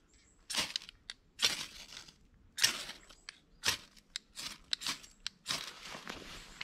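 Knife spine scraped hard down a ferrocerium rod over tinder: about ten sharp rasping strikes, the last few quicker and shorter. Near the end the tinder catches alight.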